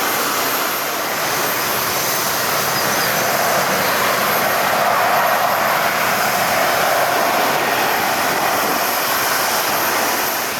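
Jet airliner engines running on the apron, a loud, steady rush of noise that swells slightly midway.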